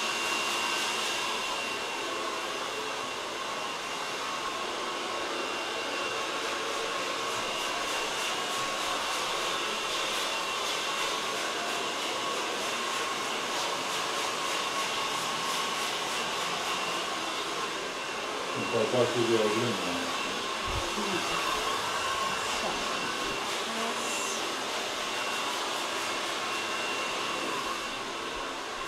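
Handheld hair dryer blowing steadily, a continuous rush of air with a steady motor whine. About two-thirds of the way in, a brief, louder pitched sound cuts in over it.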